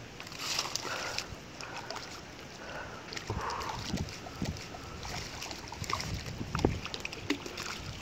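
A hooked channel catfish thrashing and splashing at the water's surface close to the bank, with irregular sloshes and a louder splash late on, while it fights the line.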